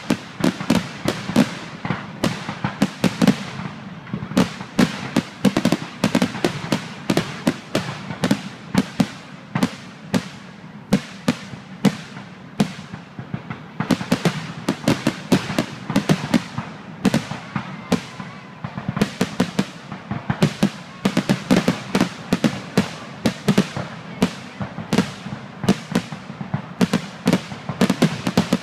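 Aerial firework shells bursting overhead, a continuous run of sharp bangs, a few a second with no let-up.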